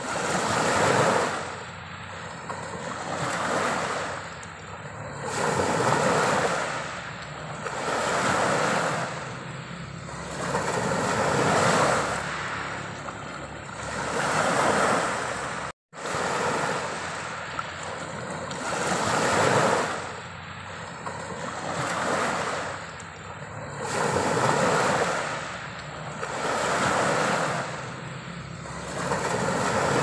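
Small waves washing onto a pebble beach, each wash swelling and ebbing about every two seconds. The sound cuts out for an instant a little before halfway through.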